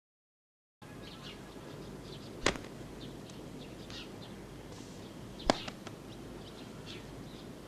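Outdoor ambience with birds chirping over a steady low hiss, starting about a second in, broken by two sharp clicks about three seconds apart.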